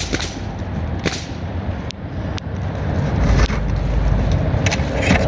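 Sheet-metal flashing being bent and pressed by hand against a metal duct, giving a few scattered sharp metallic clicks and taps, over a steady low rumble.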